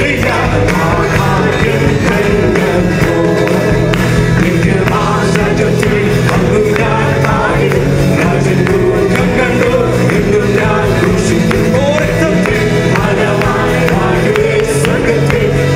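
A live Malayalam Christian worship song: several men singing together through microphones over a band with acoustic guitar and a steady beat.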